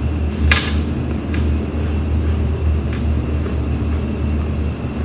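Steady low machine hum, with a sharp click about half a second in and a few faint taps.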